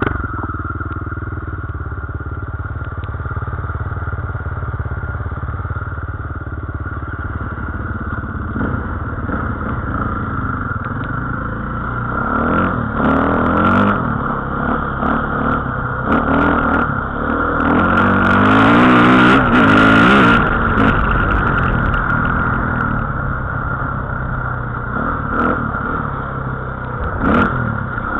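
Dirt bike engine running while riding, its revs rising and falling. It comes in suddenly at the very start and is loudest a little past the middle, where it is revved harder.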